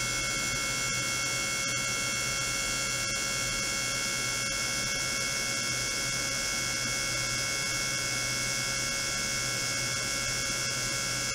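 Steady electrical hum and high whine with many fixed tones and a hiss, from an ultrasonic test rig running: probes in a water tank driven by function generators. It holds unchanged, with no pauses or sweeps.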